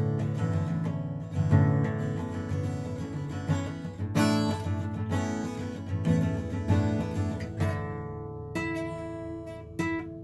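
Acoustic guitar strummed in a steady chord pattern without singing; near the end the strumming thins to a few single chords left ringing.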